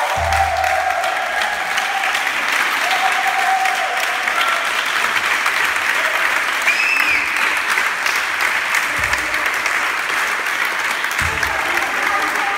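A group of people clapping their hands together, dense and continuous, with a few voices calling out over it.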